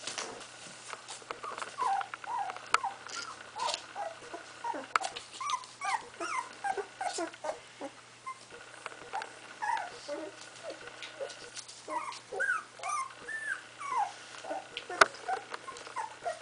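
16-day-old puppies whimpering and squeaking: many short rising-and-falling cries, one after another, with scattered light clicks.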